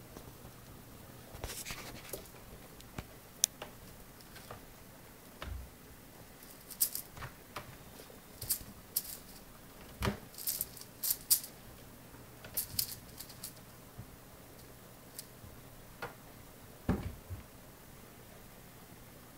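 Kittens clambering and batting hanging toys on a cat play tree: scattered scratches, rustles and light clicks, with a dull thump about five seconds in and another near the end.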